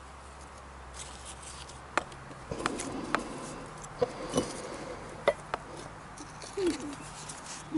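Irregular light clicks, taps and rustling from hands handling a lighter and burning tinder at the opening of a brick rocket stove.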